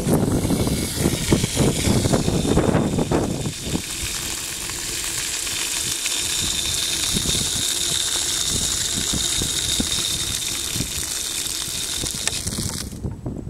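Water rushing out under pressure through an opened brass ball valve and hose-timer outlet, gushing onto the ground in a steady hiss that starts suddenly and cuts off near the end.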